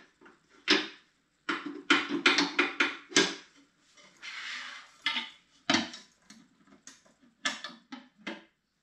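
Metal knocks and clanks as the roller assembly of a Galaxy floor belt sander is fitted back into the machine, with a short scraping rush about four seconds in.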